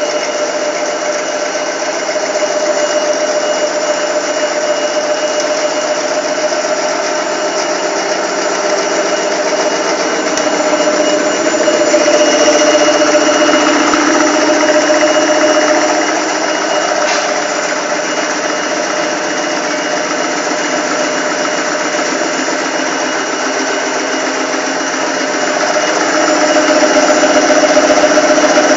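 Sausage-slicing machine running steadily, cutting sausages on the diagonal, a steady mechanical whine of several held tones, a little louder near the end.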